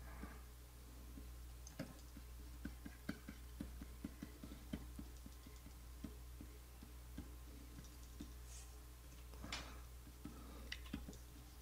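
Faint run of light clicks and taps from computer input devices during digital painting, about three a second for several seconds, then scattered, over a low steady electrical hum. A brief soft rustle comes near the end.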